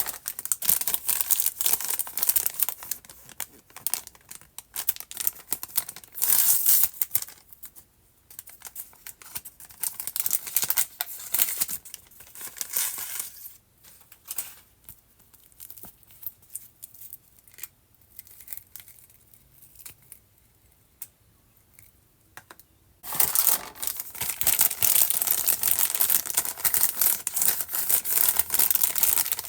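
Packaging of a Barbie Color Reveal toy being torn open and crinkled by hand, in bursts during the first half. It goes quieter with a few small clicks and handling noises for several seconds, then turns into a long stretch of steady crinkling and tearing near the end.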